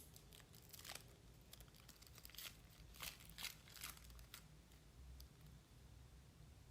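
Faint crinkling and tearing of a foil booster-pack wrapper being opened, with scattered light rustles and clicks of trading cards being handled.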